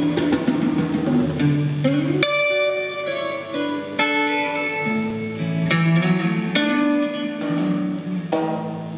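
Electric guitar played live: slow, ringing chords and notes that change every one to two seconds, with one note bent upward about two seconds in.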